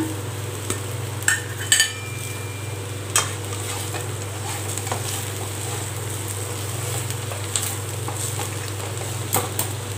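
Brinjals, shallots and garlic frying in oil in a kadai, stirred with a wooden spatula as the spice powders are sautéed: a steady sizzle with a few sharp scrapes and knocks of the spatula against the pan, over a steady low hum.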